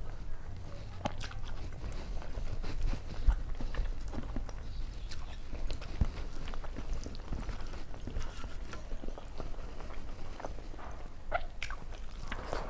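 Close-miked chewing with wet lip smacks and mouth clicks from a person eating rice and curry by hand, one irregular click after another. Soft squelches of food being mixed by hand on a steel plate come in between.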